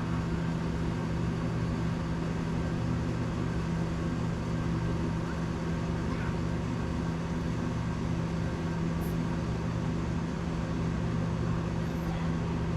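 A steady low machine hum, unchanging in pitch and level, with only a few faint small sounds over it.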